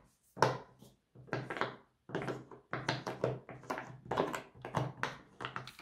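Silicone pop-it fidget toy having its bubbles pressed one after another: a string of soft pops, about three a second.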